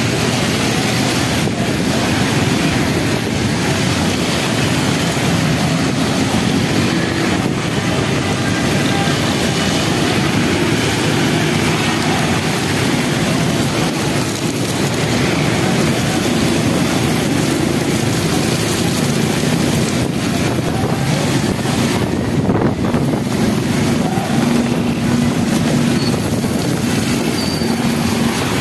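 Heavy rain pouring steadily, with traffic on a wet road: auto-rickshaw and motorcycle engines running and tyres hissing through standing water.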